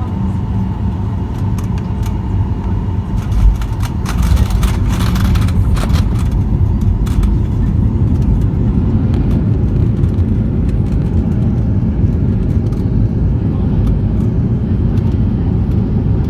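Aircraft landing: a steady low engine and airflow rumble, a sharp thump about three and a half seconds in, then a louder steady rumble for the rest.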